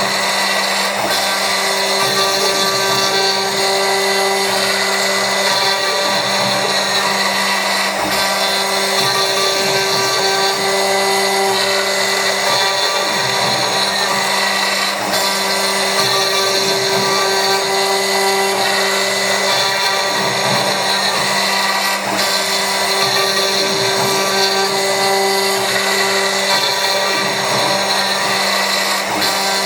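CNC milling machine cutting with a 3 mm-radius ball-nose end mill: a steady motor whine over cutting noise, with a second tone that comes and goes every few seconds as the machine works.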